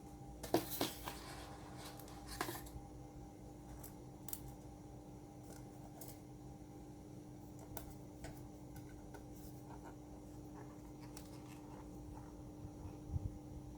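Small scattered clicks and scrapes of a screwdriver driving the screws back into a MacBook Pro's bottom case, the loudest in a quick cluster about a second in, with a low knock near the end as the laptop is handled. A faint steady hum sits underneath.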